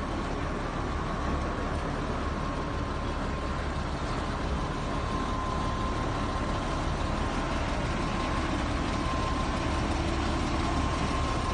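Heavy machinery running steadily: a deep rumble under an even hiss, with a thin steady whine.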